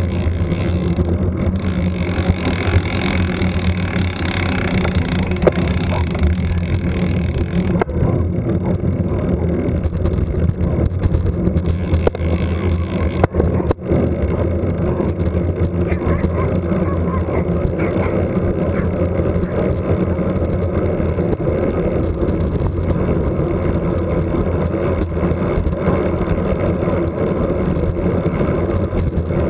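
Wind noise from riding a road bike, rushing over an action camera's microphone as a loud, steady rumble.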